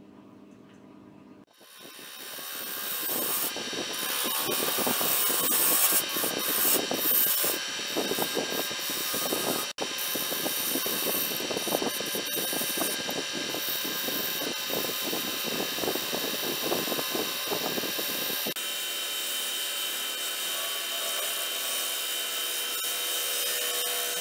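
Wood lathe running while a gouge cuts the spinning algarrobo wood: a steady motor hum under continuous rough scraping and chatter of the tool, starting loud about a second and a half in. About eighteen seconds in it changes abruptly to a smoother, steadier cutting sound as the lathe keeps turning.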